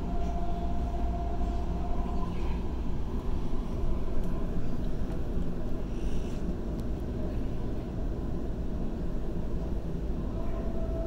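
Waratah A set electric train running along the track, heard from inside the carriage: a steady low rumble of wheels on rail, with a steady whine that drops away about two seconds in and comes back near the end.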